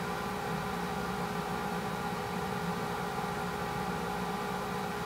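A steady, unchanging hum made of several fixed tones over a constant hiss.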